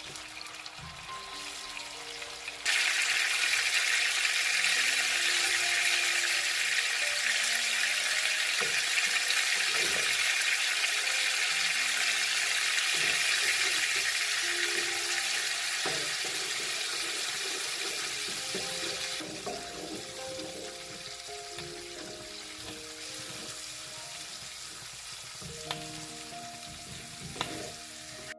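Food frying in a hot pan: the sizzle jumps suddenly louder about two and a half seconds in, as if something wet has just gone into the pan, and eases off again after about nineteen seconds, with a few knocks of a utensil against the pan near the end.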